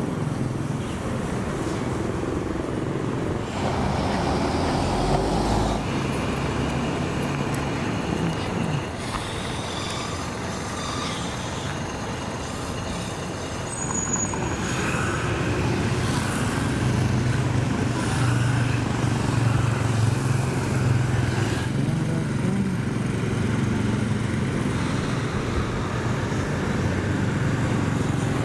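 Street traffic: motor scooters and other vehicle engines running and passing, with a low, steady engine hum through the second half.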